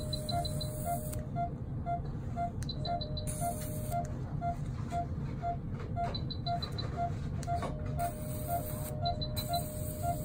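Anesthesia monitor beeping with each heartbeat, about two beeps a second, while the steady activation tone of an electrocautery pen sounds in three stretches of one to three seconds. Short runs of about five quick high pips recur every three seconds or so over a low hum.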